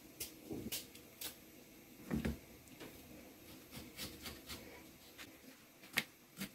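Kitchen knife cutting a peeled sweet potato on a bamboo cutting board: scattered light taps of the blade against the board, with a duller knock about two seconds in.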